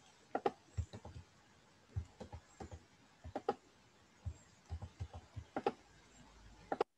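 Computer mouse buttons clicking, faint and irregular, some clicks in quick pairs, as colours are picked and filled in a paint program.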